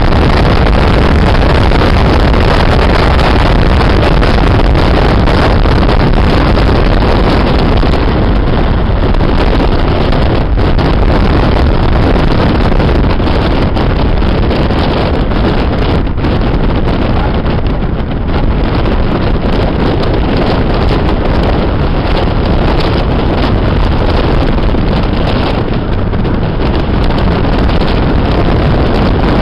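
Steady driving noise inside a classic car on the move, engine and tyre noise mixed with wind rushing in through the open side window and buffeting the microphone.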